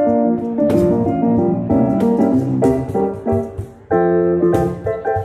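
Electric stage piano playing rhythmic chords in an instrumental passage, with sharp hand-drum hits from a cajon over it.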